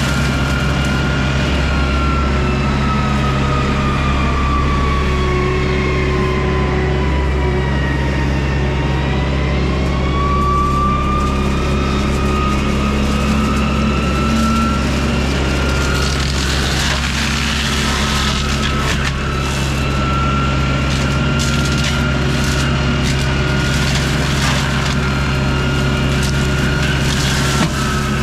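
John Deere 60G compact excavator running a Baumalight brush mulcher head: a steady diesel drone under a high whine that sags in pitch about eight seconds in and climbs back. In the second half, scattered cracks and snaps of wood being chewed up by the mulcher.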